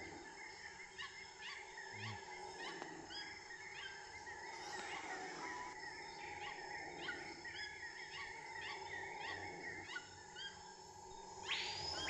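Tropical rainforest ambience: many birds calling in short repeated chirps and whistles over a steady background drone, with a short swoosh near the end.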